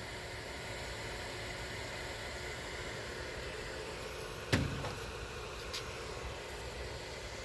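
A steady low hum, with a single sharp knock about halfway through and a fainter click a second later.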